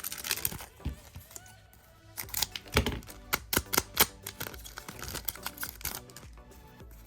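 Trading card pack being opened and the cards handled: a quick run of irregular clicks and light rustles, over quiet background music.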